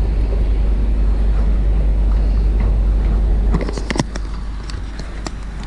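Steady low wind rumble on the microphone. About three and a half seconds in it drops away, and a few sharp splashes and knocks follow as a carp is lowered into shallow water at the river's edge.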